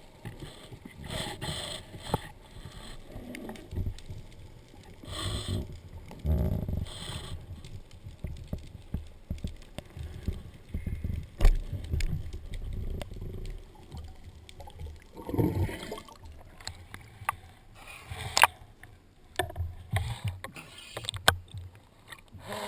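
Water rushing and sloshing around a speargun-mounted camera as the diver swims up, coming in irregular surges. Several sharp knocks and clicks of gear against the gun, one about halfway through and a couple more near the end.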